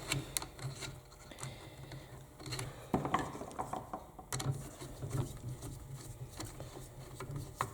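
Small irregular clicks and scrapes of a screwdriver working the screws of a circular saw's metal cord clamp, as the clamp is threaded in over the new power cord.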